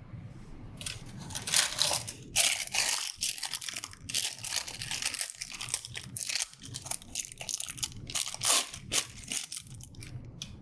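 Irregular crinkling and rustling of wrapping being handled by hand: a run of short crackles and scrapes, loudest around two seconds in and again near eight seconds.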